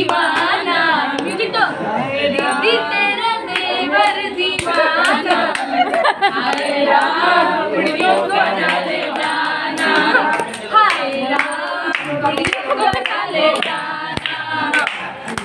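A group of women singing together without instruments, clapping their hands along, with the claps most plain near the end.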